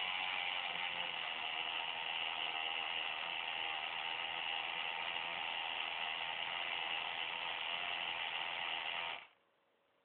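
Small aquarium air pump, built for 1.5 V but run on 3 V, buzzing steadily as it pressurizes the bottle to push the drink out through a straw. It cuts off suddenly about nine seconds in.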